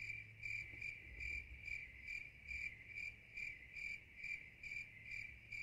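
Cricket chirping in a steady rhythm, a little over two short high-pitched chirps a second.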